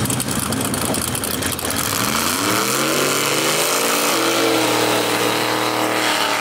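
Chevy II Nova drag car's engine running rough and crackling, then revving up about two seconds in and holding high, steady revs through a burnout with the rear tyres spinning and smoking. The sound cuts off abruptly at the end.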